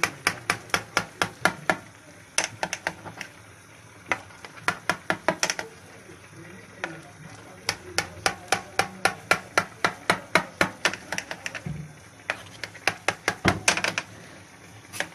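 Knife blade tapping down through soft soaked pastry onto a glass baking dish, in quick runs of sharp clicks about five a second with short pauses between runs.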